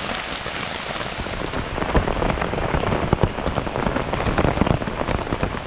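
Heavy rain falling on a tarp overhead, many separate drops striking it. From about two seconds in the drops hit harder and more densely.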